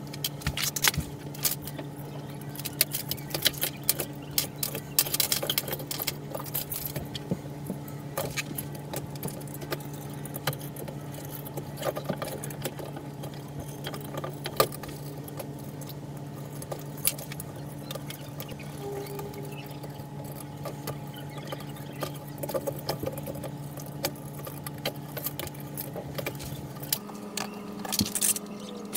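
Small metal nuts, bolts and plastic Meccano parts clicking and clinking as a model is unscrewed and pulled apart by hand with an Allen key, over a steady low hum.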